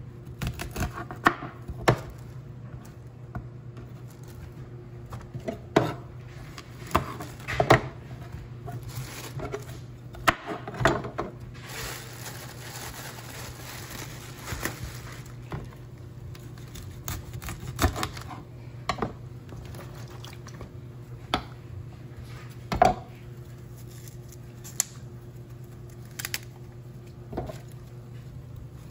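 Kitchen knife cutting broccoli florets on a plastic cutting board, with irregular sharp knocks of the blade and stalks on the board. About twelve seconds in there are a few seconds of plastic wrap rustling, and a steady low hum runs underneath.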